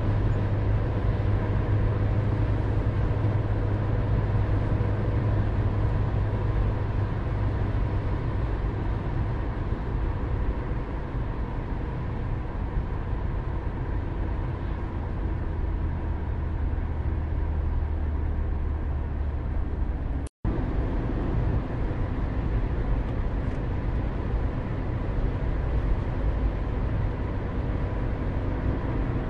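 Steady low hum of a car's engine and tyres at low speed, with faint steady tones over it. The sound cuts out completely for an instant about two-thirds of the way through.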